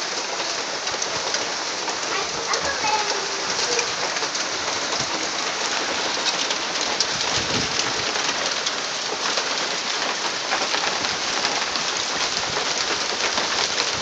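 Small hail pelting a backyard: a dense, steady patter of pellets on gravel, grass and a wooden deck, thick with sharp little ticks.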